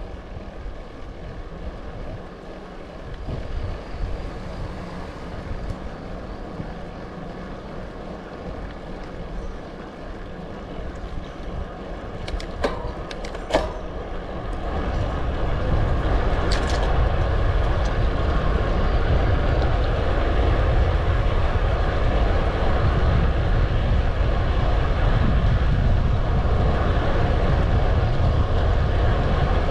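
Wind rushing over the microphone and road rumble of a moving bike, a steady noise that grows louder about halfway through, with a few sharp clicks just before.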